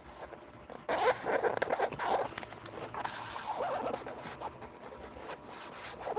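Pet hedgehog crunching and chewing dry cat-food kibble from a bowl, a dense crackle loudest about a second in and again around three seconds in.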